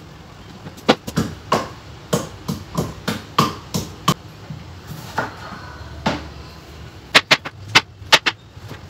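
Wooden pestle pounding garlic in a wooden mortar: a run of sharp knocks, about three a second. Near the end, a knife chopping a tomato on a plastic cutting board in a quicker run of knocks.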